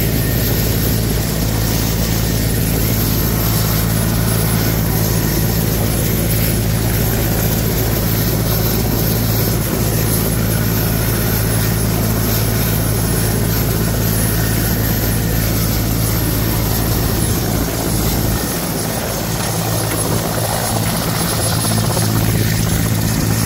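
Mi-17 helicopter running on the ground with its main rotor turning: a loud, steady turbine-and-rotor drone with a constant low hum. The deepest rumble eases slightly about three-quarters of the way through.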